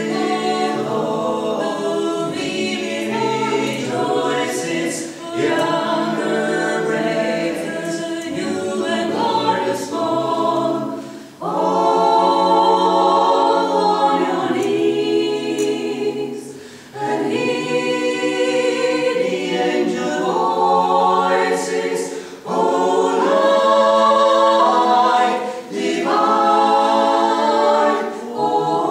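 Mixed vocal quartet, two men and two women, singing a folk song a cappella in harmony, phrase after phrase with short breaks for breath between them.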